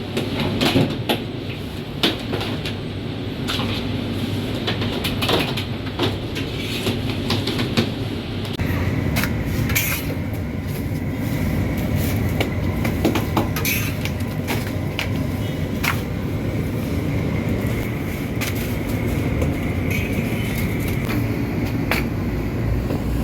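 Bakery machinery running with a steady rumble and frequent sharp clicks and knocks; about eight seconds in, a deeper hum and a steady high whine join in as another motor starts.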